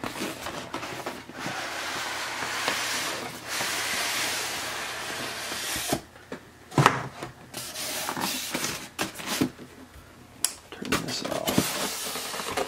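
Cardboard packaging and its styrofoam insert being handled: a long sliding rub for about six seconds, then a run of knocks and scrapes, the sharpest about seven seconds in.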